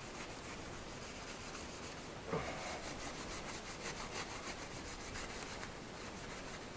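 Steel wool being rubbed back and forth over the aluminum transaxle housing of a Craftsman lawn tractor, a faint scrubbing, with one soft knock about two seconds in.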